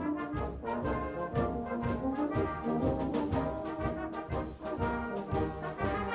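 Brass band playing live, full ensemble in a rhythmic passage with sustained chords over regular accented notes.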